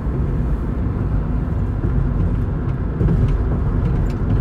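Road and engine noise inside the cab of a Nissan NV200 van cruising at about 50 mph: a steady low rumble.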